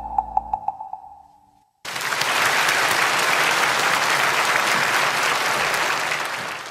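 The last notes of the music fade away with a ticking beat, and after a brief silence an audience breaks into steady applause, about two seconds in. The applause stops abruptly at the end.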